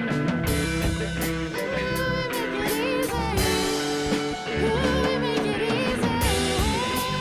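Background music: an instrumental stretch of a live jazz/hip-hop band track, with drums and bass under a lead line that bends its notes up and down.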